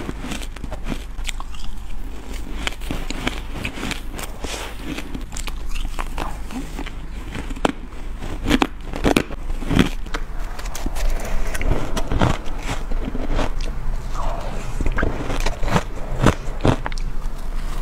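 Close-up biting and crunching of shaved ice, many irregular crisp crunches that grow denser and louder in the second half, over a steady low hum.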